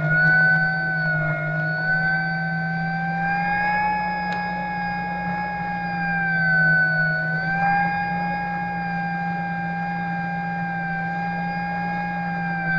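Electric motor and propeller of an FMS Cessna 182 radio-controlled model plane whining steadily in flight. The pitch rises a little about three seconds in, dips briefly a few seconds later, then climbs back.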